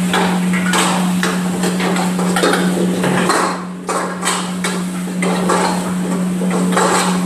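Metal ladle clanking and scraping against a wok, many times in quick succession, as vegetables are stir-fried, over a steady low hum.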